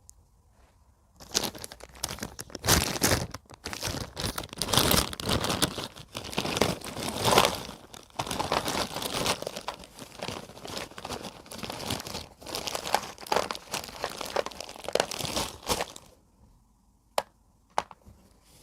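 Crinkling and crackling of a packet of broken slate pencils being handled and opened, continuous for about fifteen seconds. Two sharp clicks follow near the end.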